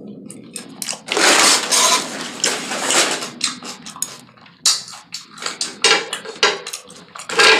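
Close-mic eating sounds: crunching and chewing of taco salad with its fried tortilla shell, a dense crunch for about two seconds early on followed by many short clicks and crackles.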